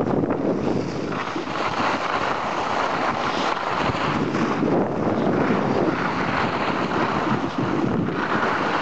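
Wind rushing over the microphone of a camera carried by a moving skier, mixed with skis sliding and scraping over snow; a steady rushing noise with small swells.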